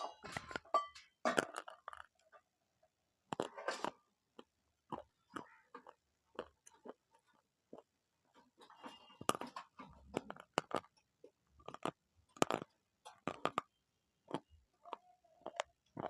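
Close-miked chewing of crunchy food: irregular sharp crunches coming in clusters, with short pauses between bites.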